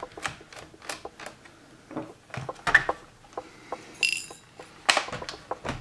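Small clicks and taps as a missed screw is worked out of a laptop's plastic bottom case. About four seconds in, the small metal screw lands in a little dish with a brief, bright metallic ring. Two louder knocks follow near the end.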